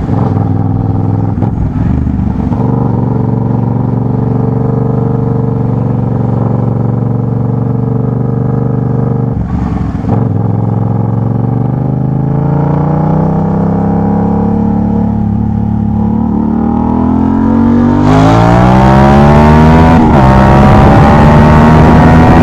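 Yamaha MT-07's 689 cc crossplane parallel-twin engine through a Jeskap GP3 sports exhaust with the dB killer removed. It runs at a steady low engine speed, then slowly rises in pitch as it is accelerated. It gets louder near the end, where the pitch drops briefly and climbs again.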